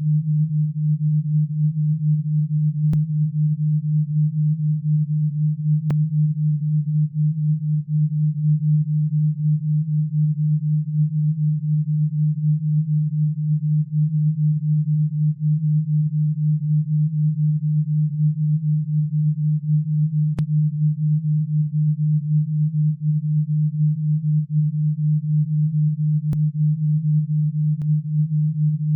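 Alpha-wave sound-therapy tone: a steady, low, pure synthetic tone with a fast, regular pulsing in loudness. A few faint clicks now and then.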